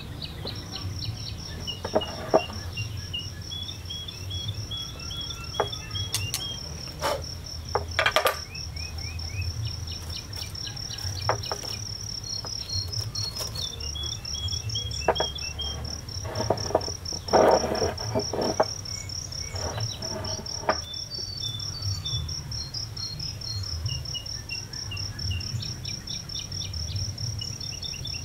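A cricket trilling in one high, continuous, finely pulsed tone that starts just under a second in, with short series of lower chirps. Over it come scattered clicks and rustles of hands handling a small bonsai, its wire and its pot, loudest about eight seconds in and around seventeen seconds in.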